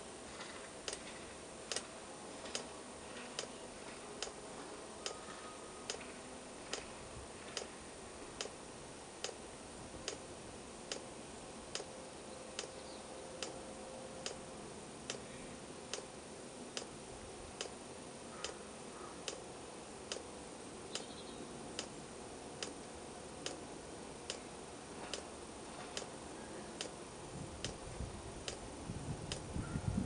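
Fuel dosing pump of a 5 kW Chinese planar-style diesel heater ticking steadily, a little more than once a second, as it meters fuel to the burner, over a faint steady hum. A few low bumps near the end.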